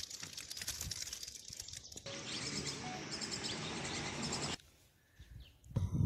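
Outdoor background noise with birds chirping, in short edited pieces: the sound changes abruptly about two seconds in and drops out almost to silence near the end.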